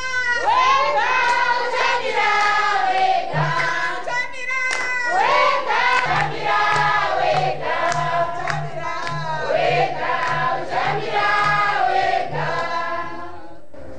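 A choir of voices singing together, with a low steady beat at about two a second joining about six seconds in.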